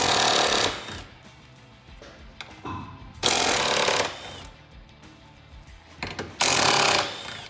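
Cordless impact wrench hammering in three short bursts of under a second each, about three seconds apart, as it loosens the bolts holding the exhaust cross braces.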